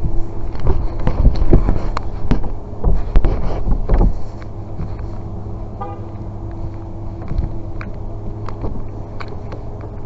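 Car alarm sounding with horn-like tones. A loud low rumble dominates the first four seconds, then drops away.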